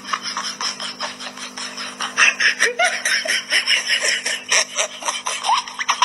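A person giggling and snickering in quick breathy laughs, with a steady low hum under it.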